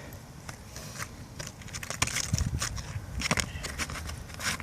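Roofing material being cut by hand around a soil stack, a run of irregular crackling and scraping strokes, with the sharpest ones about two, three and four and a half seconds in.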